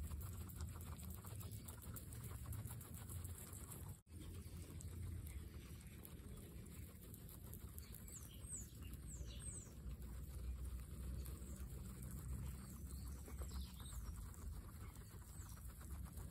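Several guinea pigs munching fresh grass: a dense crackle of small bites and chewing, with a brief gap about four seconds in. A few short high chirps come through over the chewing in the second half.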